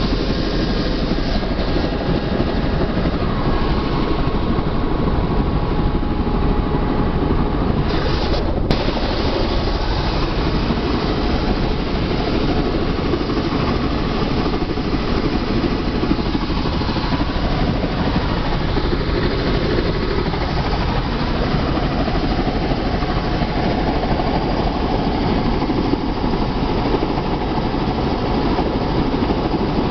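Helicopter turbine engine and rotor running steadily, heard from inside the passenger cabin.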